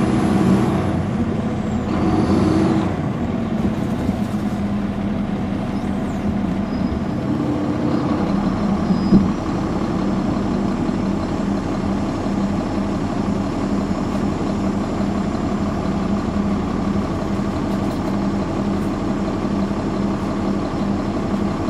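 Caterpillar C13 ACERT diesel engine of a 2009 NABI 416.15 transit bus running steadily under way. There is a brief high whine in the first few seconds and a single thump about nine seconds in.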